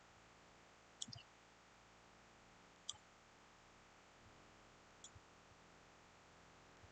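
Computer mouse clicking: three short, sharp clicks about two seconds apart over a faint steady hiss.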